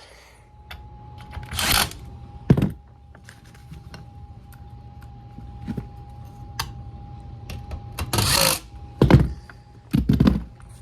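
Air handler blower fan starting up and running with a steady hum and a thin, even whine that comes in about half a second in. Over it, several sharp knocks and clicks and two short bursts of rustling from handling the unit.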